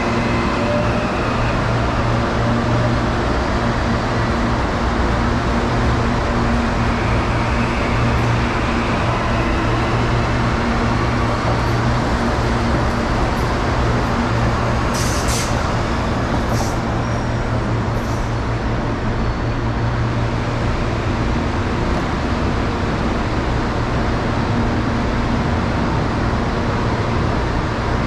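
Steady low hum and rumble of an electric commuter train at a station platform. A few short hisses of air come about halfway through.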